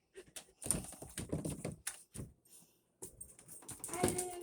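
A dog's claws scratching and tapping at a door, a run of quick clicks and scrapes, with a brief squeak near the end.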